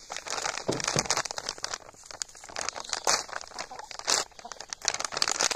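Plastic bag of garden soil amendment crinkling and crackling as it is handled, in an irregular run of rustles.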